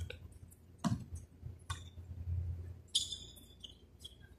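Sounds of a basketball game in play: a sharp thump about a second in, a fainter knock shortly after, and a short high squeak near the three-second mark, over a steady low hum.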